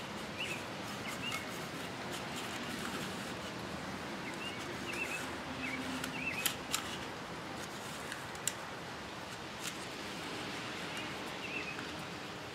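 Recoil starter pulley of a Powermore lawnmower engine turned by hand to wind up its spring: quiet handling with a few sharp clicks around the middle, over a steady outdoor hiss with faint bird chirps.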